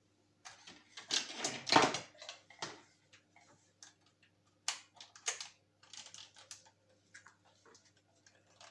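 Scattered clicks and rattles of a hair dryer being handled and plugged in, louder between about one and two seconds in, with no motor or fan running: the dryer is dead, neither heating nor spinning.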